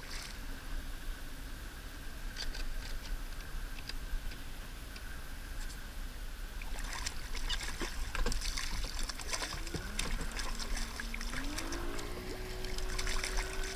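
Water lapping and splashing around a kayak as a hooked sea robin is brought up at the surface, with bouts of splashing about seven seconds in and again near the end. About ten seconds in a hum comes in and steps up in pitch twice, then holds.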